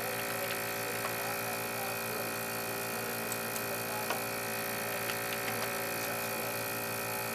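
Steady electric whir of a BGA rework station's heaters and cooling fans running while a laptop GPU is heated toward solder-melting temperature, with a few faint ticks scattered through.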